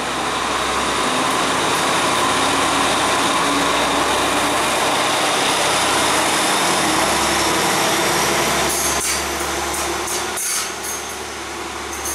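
Sri Lankan diesel multiple unit passing close by: a loud, steady rush of coaches and power-car engine. From about nine seconds in, as the rear power car draws away, a run of sharp clicks sounds over a slightly lower rumble.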